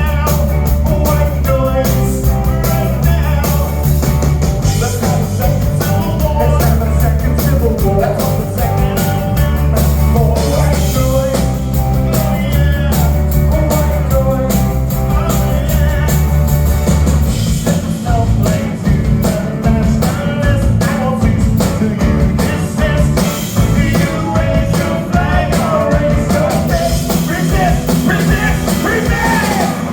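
Live rock band playing a song with a man singing lead over guitar, bass and drums. About seventeen seconds in, the held low bass notes give way to a choppier, drum-driven beat.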